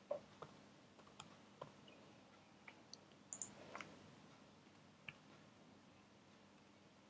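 Faint computer keyboard keystrokes: about a dozen short, irregular clicks in the first five seconds, over a faint steady hum.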